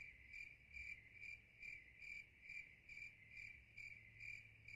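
Faint cricket chirping, an even rhythm of a little over two chirps a second, over a faint steady low hum.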